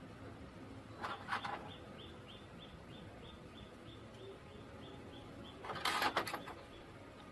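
A small bird chirping in a steady series of short high notes, about three a second, with two brief clattering bursts, the second louder.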